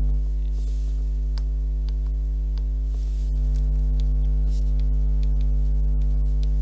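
Steady low electrical mains hum with a stack of evenly spaced overtones, carrying faint, scattered ticks of a stylus writing on a tablet.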